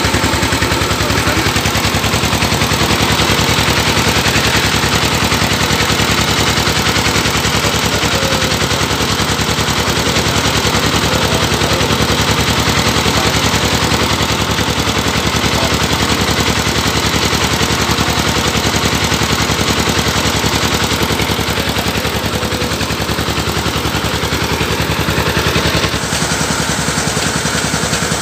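Engine of a home-built rice-milling truck running steadily, a rapid even clatter of firing strokes, driving the belt-driven rice mill; the sound shifts slightly a couple of seconds before the end.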